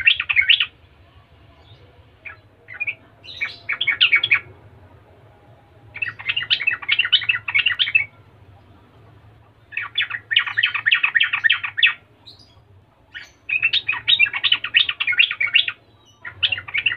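Yellow-vented bulbul (trucukan) singing in phrases of rapid chattering notes. Each phrase lasts about two seconds, and they come back every three to four seconds.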